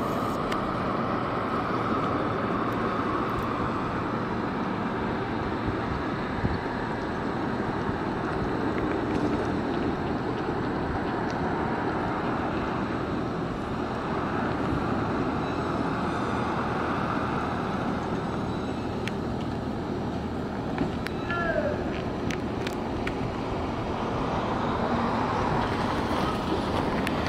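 Steady city street traffic noise with a tram on the tracks in the distance; an electric trolleybus comes closer and the sound grows a little louder near the end.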